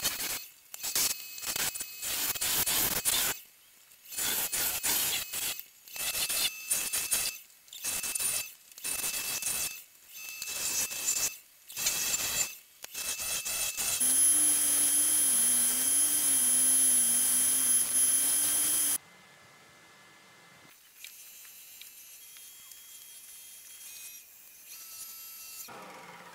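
Scraper cutting a camphor laurel bowl on a spinning wood lathe, in a string of short rasping strokes. Then a sanding pad is run against the spinning bowl: a loud steady whir with a high thin whine that cuts off suddenly, leaving the lathe's quiet hum.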